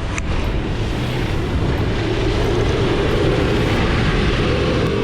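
Nissan Patrol GQ's TD42 diesel engine running as the truck cruises along, a steady rumble mixed with road noise, with a short click just after the start.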